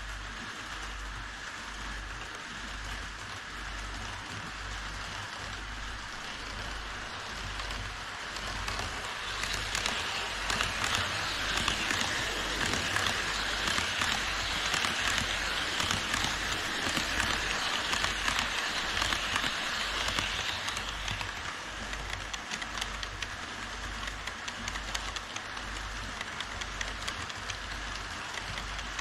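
HO scale model trains rolling on plastic track: a steady hiss of wheels and small motors, louder for about ten seconds in the middle as a model E5 series Shinkansen passes close by.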